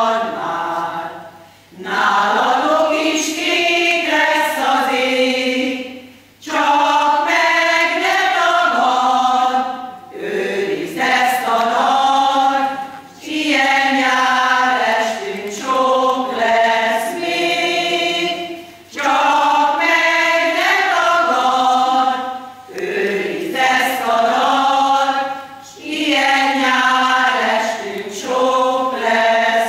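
Women's folk choir singing, in phrases of about three to four seconds with short breaks for breath between them.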